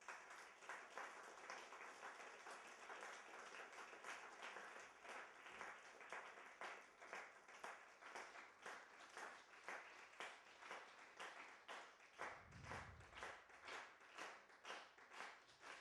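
Audience applauding, breaking out suddenly at the end of the music. The clapping falls into a steady unison rhythm of about two to three claps a second in the second half, with a dull low thud about twelve seconds in.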